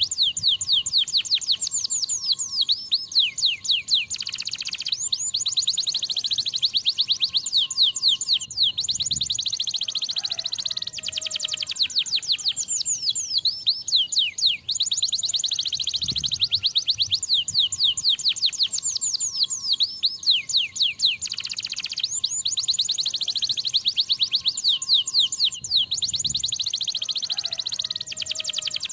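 Domestic canary singing a long, loud song of fast trills: high sweeping notes rattled off many to the second in long rolling phrases with brief pauses between them.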